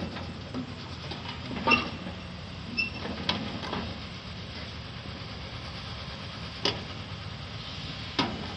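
Hyundai crawler excavator's diesel engine running steadily as its steel tracks climb a steel truck ramp, with about four sharp metallic clanks and a couple of brief squeaks from the tracks and deck.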